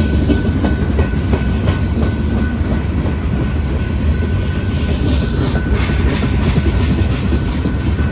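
Freight train cars rolling past in a steady heavy rumble, with scattered wheel clicks and a faint thin steady tone above.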